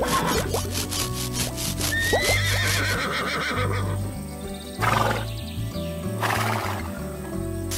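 A cartoon horse whinnying, over background music, with two short hissing bursts about five and six and a half seconds in.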